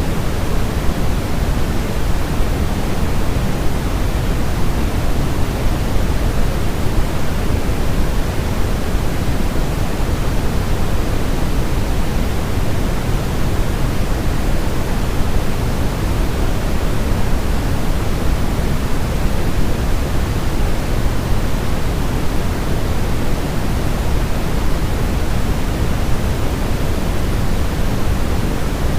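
Steady synthetic noise, weighted toward the low end like pink noise, with no change in level, played as a baby-sleep sound meant to imitate the sound of the womb.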